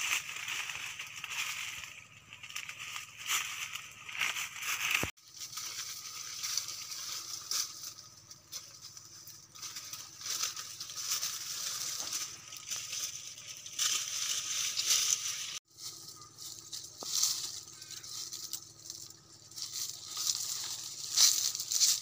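Dry dead leaves crunching and rustling underfoot and foliage brushing as someone moves and gropes through leaf-littered undergrowth: an irregular crackling, with two abrupt breaks.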